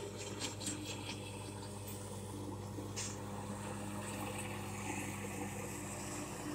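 A steady low motor hum, with a few faint clicks near the start and a brief higher hiss about three seconds in.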